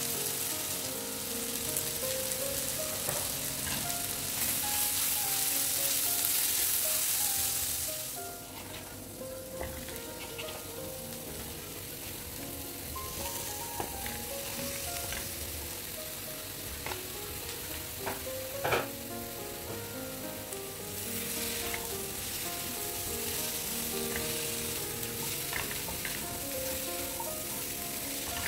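Onions and spices sizzling in hot oil in a nonstick kadhai, stirred with a spatula. Spiny gourd slices are tipped into the pan partway through, with a few sharp knocks of pieces and spatula against it. The sizzle drops suddenly about a third of the way in and builds back up near the end.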